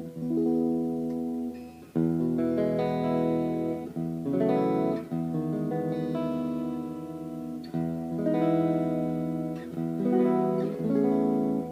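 Fernandes FST-70 Stratocaster-style electric guitar played with a clean tone: chords strummed and left to ring, a new chord about every one to two seconds.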